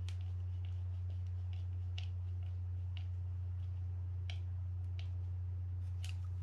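Faint, irregular small clicks, about one a second, as a mini screwdriver turns a small screw into the bail arm of a Shimano Baitrunner fishing reel. A steady low hum runs underneath.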